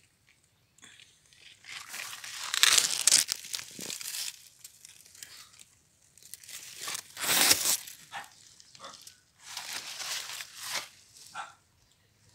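Dry leaves and vines rustling and crunching in three bursts of a few seconds each, with short crinkling sounds between them.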